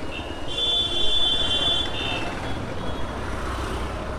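A high-pitched vehicle horn sounds one steady note, with two short breaks, for about two seconds, over the low rumble of a motorcycle and slow town traffic.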